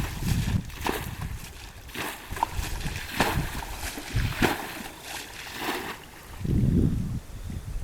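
Water splashing and sloshing in irregular bursts, with a louder low rumble near the end.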